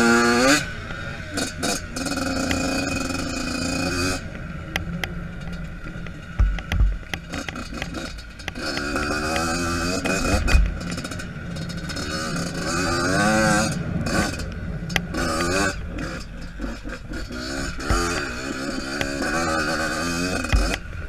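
Two-stroke dirt bike engine revving up and falling back again and again while riding off-road, with a sharp rev right at the start. Wind buffets the helmet-camera microphone, and there are occasional knocks and rattles.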